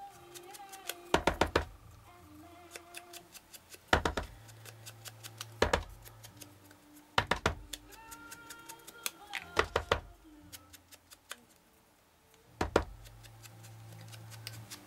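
Quiet background music with a slow, steady melody, broken by six short clusters of sharp taps and knocks as craft items are handled on a tabletop.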